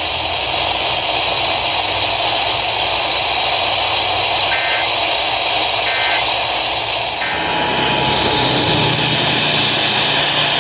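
Radio static hiss broken by three short EAS data bursts, a fraction of a second each and about a second and a half apart: the end-of-message code that closes an alert. After the third burst the hiss changes and grows slightly louder.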